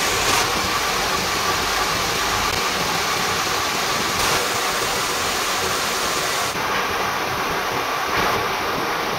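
Gear-cutting machine running, its rotating cutter cutting spur-gear teeth into a high-strength steel shaft under a drip of cutting oil: a steady mechanical noise whose tone shifts slightly a couple of times.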